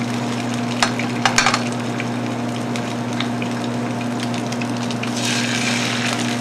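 Pieces of redfish (sébaste) fillet sizzling in hot oil in a stainless steel frying pan on a portable camping gas stove, with a few sharp crackles about a second in. The sizzle swells near the end as another piece is laid in. A steady low hum runs underneath.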